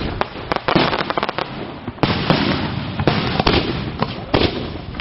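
Aerial firework shells bursting in a rapid series of sharp bangs over a dense crackling hiss, easing off slightly near the end.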